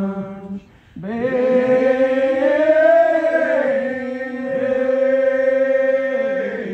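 Unaccompanied Old Regular Baptist congregation singing a lined-out hymn in slow unison, drawing one word out over a long, ornamented note. A held note breaks off just after the start, and about a second in a new long note begins, swelling and dipping in pitch as it carries on.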